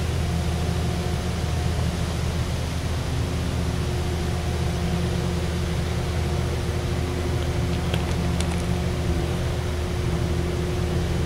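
A steady, low mechanical hum of an engine running at idle, with faint steady tones above it and a few faint ticks about eight seconds in.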